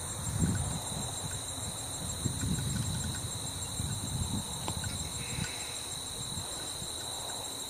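Steady high-pitched chorus of field insects, with wind buffeting the microphone in irregular low gusts.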